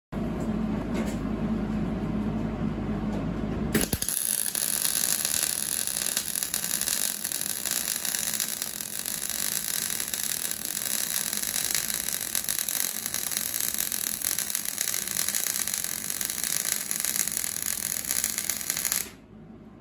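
MIG welder arc crackling steadily while welding steel brackets to tube steel. It starts with a sharp click about four seconds in and cuts off abruptly about a second before the end. Before it comes a low hum.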